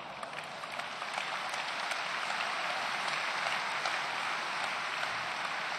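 Large audience applauding, swelling over the first second or two and then holding steady.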